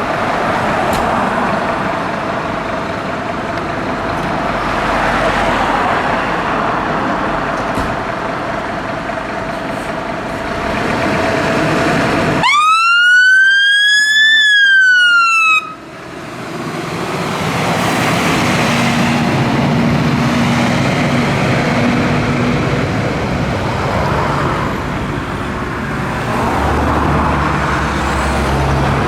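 Road and engine noise from traffic, then about twelve seconds in a fire engine's Whelen Alpha siren on wail sounds clearly for about three seconds, one tone rising then falling, and cuts off suddenly, leaving engine hum and road noise again.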